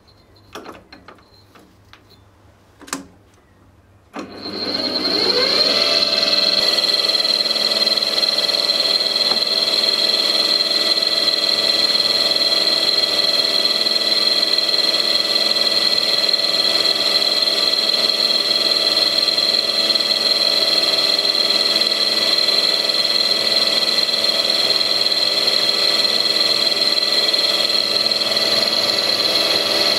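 A few clicks and knocks as a bit is fitted in a small mill-drill's chuck. Then the spindle motor starts about four seconds in, rises in pitch for a couple of seconds and runs steadily with a high whine as the cutter works into an aluminium pulley hub.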